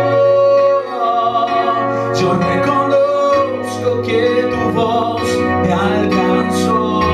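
A man singing a Christian worship song over an instrumental backing track. He holds long notes, and the backing's bass notes change every few seconds.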